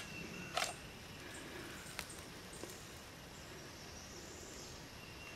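Trail camera being handled on a tree: a brief rustle just after the start, then a sharp click about two seconds in and a softer click just after, over a quiet woodland background.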